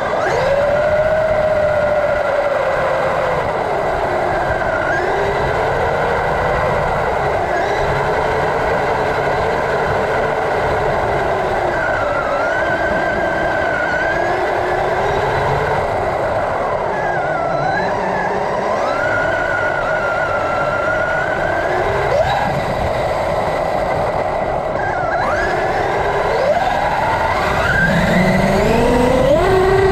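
Traxxas UDR radio-controlled truck's brushless electric motor whining as it drives across grass, the pitch gliding up and down with the throttle, over the rumble of the drivetrain and tyres, heard from a camera mounted on the truck. Near the end the whine climbs steeply as the truck speeds up.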